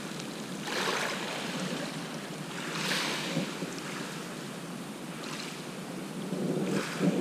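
Small waves washing onto a shingle beach, swelling three times about two seconds apart.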